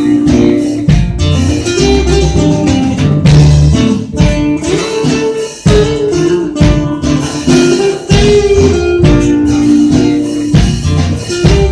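Live band playing an instrumental break: guitar over bass guitar and a steady beat, with no singing.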